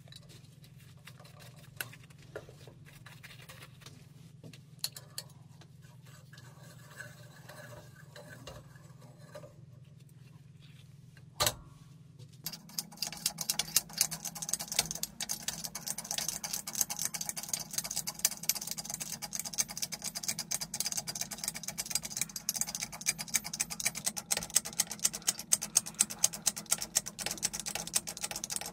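A low hum with a few scattered clicks; about halfway through, a dense, rapid, irregular crackle of sharp clicks starts and keeps going.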